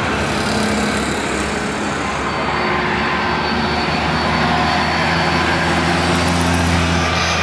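Twin-engine jet airliner on final approach with gear down, its engines running with a steady rumble and low drone.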